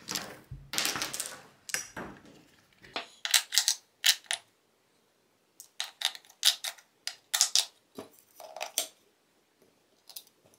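AAA batteries clicking and rattling as they are handled and pressed into a multimeter's plastic battery compartment: a series of short, sharp clicks and knocks with pauses between them.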